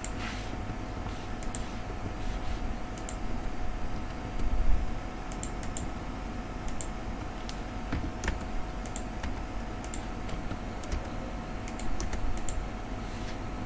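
Computer keyboard typing and mouse clicks: scattered, irregular light clicks over a steady faint hum, with one low thump about four and a half seconds in.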